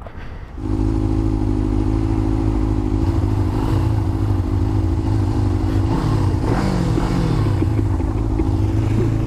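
Motorcycle engine that comes in suddenly about half a second in and then idles steadily at an even pitch.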